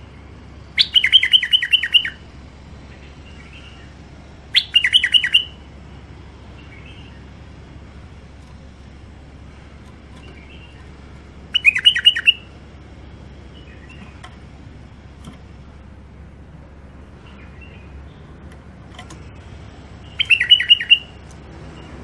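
White-eared bulbul singing: four short phrases, each a quick run of repeated clear notes, about a second in, near five seconds, near twelve seconds and near the end, with faint soft calls in between.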